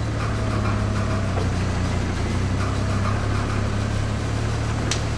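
Four-wheel-drive engine idling steadily during a mud-bog recovery, with a short sharp click near the end.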